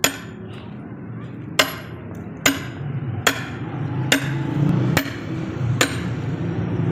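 An axe chopping into a wooden log for firewood: seven sharp chops, about one every 0.8 seconds.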